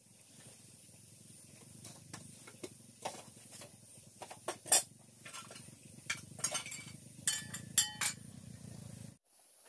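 Clinks and knocks of metal pots and utensils being handled, several with a short metallic ring, the loudest about halfway through. Under them a steady low rumble that stops abruptly near the end.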